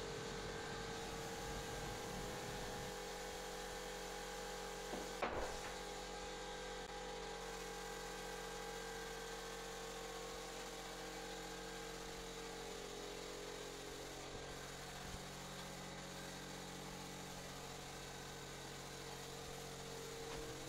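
Small air compressor running steadily, with the hiss of air through a gravity-feed spray gun spraying wall paint. There is a short knock about five seconds in.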